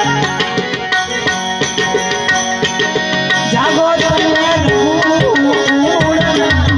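Harmonium playing the melody of a devotional song over a steady tabla beat, its held reed notes sounding continuously under the drum strokes; about halfway through a more ornamented, wavering melodic line comes in.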